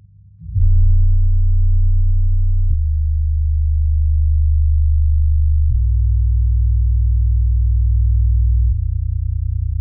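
Deep bass from a DIY 12-inch ported subwoofer with a Dayton UM12 driver, playing a movie soundtrack with the high frequencies cut. It plays sustained low tones that change pitch every few seconds, with nothing above the bass range, and drops somewhat in level near the end.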